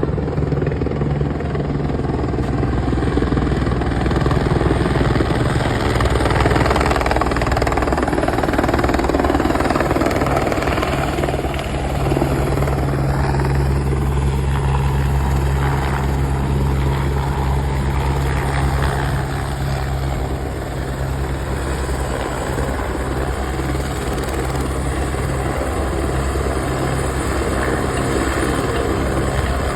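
Helicopter running close by, its rotor blades giving a fast, steady chop throughout.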